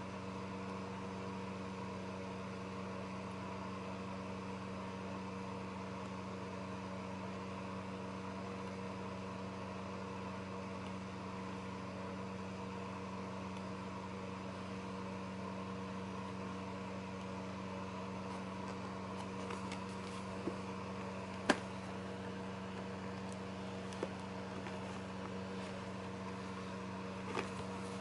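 A steady electrical hum with a faint hiss. From about three-quarters of the way in come a few short taps and rustles of paper and cardboard being handled as a booklet's pages are turned and its box is picked up; the sharpest tap is a little after that point.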